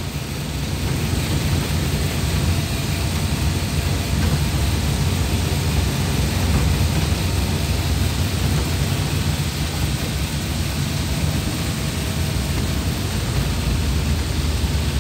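Steady low rumble and hiss of a vehicle driving on a wet road, heard from on board.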